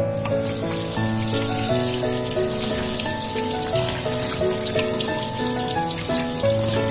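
Background music, a gentle melody of held notes, over a kitchen tap running steadily into the sink.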